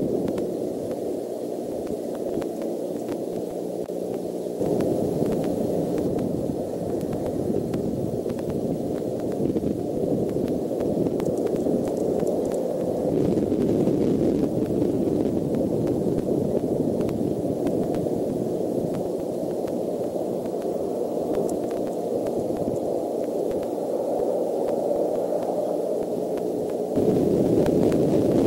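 Steady, dull hiss of background noise, with no calls or distinct events. It steps up in level about five seconds in and again near the end.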